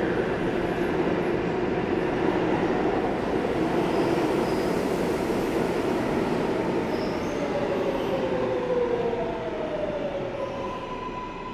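A train running on rails: a steady noise with faint squealing tones, one gliding slowly downward, easing off near the end.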